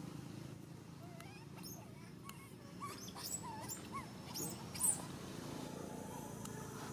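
Baby monkey giving a string of short, high squeaks that rise and fall in pitch, mixed with a few sharp clicks, the loudest near five seconds in.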